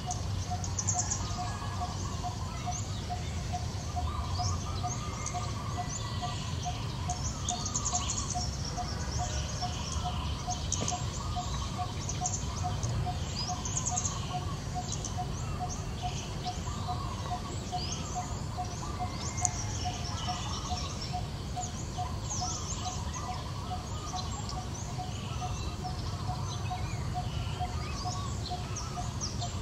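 Birds chirping and calling, with one low note repeated steadily about twice a second throughout, over a steady low background noise.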